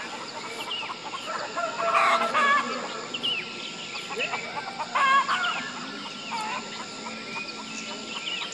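Birds calling: many short overlapping pitched calls, loudest about two and five seconds in, over a faint steady high tone.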